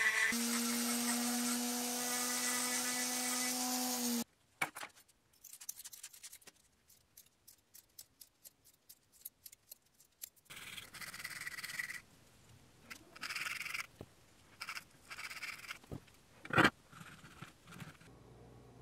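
A small handheld rotary tool with a thin carving bit runs steadily on a white oak mouthpiece blank and stops suddenly about four seconds in. Then comes a quick series of scissor snips cutting sandpaper into small squares. Near the end there are short sanding strokes on the wood, with one sharp knock.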